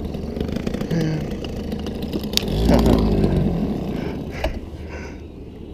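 Small boat outboard motor running steadily, a low rattling drone.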